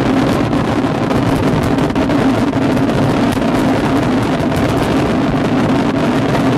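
Dense fireworks barrage: many bangs overlap into a steady, loud rumble, with a fine crackle throughout from the salvo.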